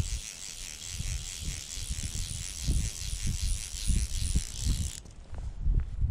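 Fly reel's click-and-pawl drag ticking rapidly as line is reeled in, stopping about five seconds in. Wind buffets the microphone throughout.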